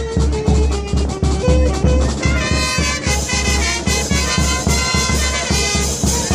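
A brass band plays a lively tune, with horns carrying the melody over a steady bass-drum beat.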